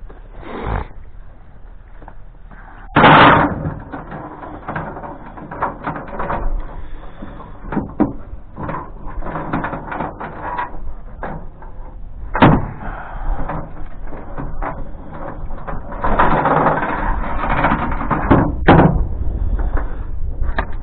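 Metal chain and gate hardware being handled: irregular clanks, knocks and rattles, with a loud clatter about three seconds in, a sharp knock around the middle, and a longer stretch of rattling near the end.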